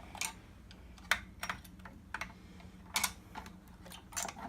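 Irregular sharp clicks and taps of projector parts being handled and worked loose during a teardown, about eight in all, over a faint steady hum.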